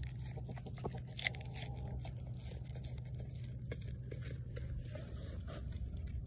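Goat biting and chewing leafy greens, a run of crisp crunches and tearing clicks, thickest in the first few seconds. A low steady hum sits underneath and stops about five seconds in.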